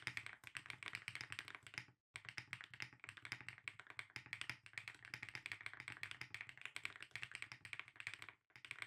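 Typing sound test on a Lucky65 v1 mechanical keyboard with HMX Lotus switches on a polycarbonate plate: a fast, dense run of creamy, clacky keystrokes, with brief pauses about two seconds in and near the end.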